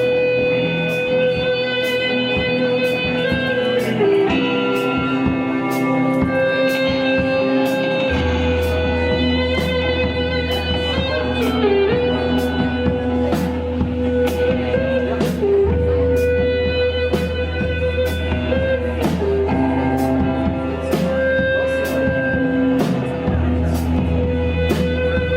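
Live band playing an instrumental passage led by guitar, over a steady beat of sharp strokes. A low bass comes in about eight seconds in.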